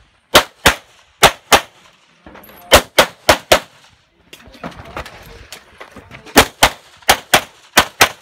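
Glock pistol fired in quick pairs: about seven double taps, fourteen shots, in two strings with a lull of about three seconds between them.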